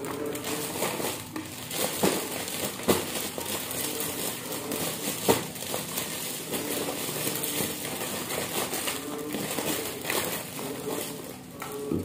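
Plastic snack packets and a clear plastic bag crinkling and rustling as they are handled and packed, with a couple of sharper crackles.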